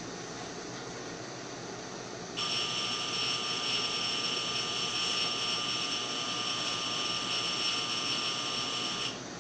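An electric blower motor runs with a steady high whine and a rush of air. It switches on abruptly about two seconds in and cuts off suddenly near the end.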